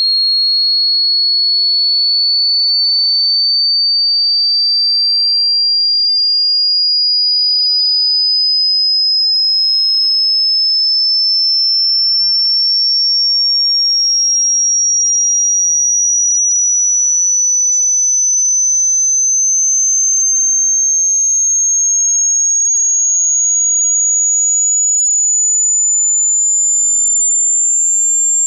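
Electronic hearing-test tone: a single pure, high-pitched tone gliding slowly and steadily upward in pitch at an even loudness.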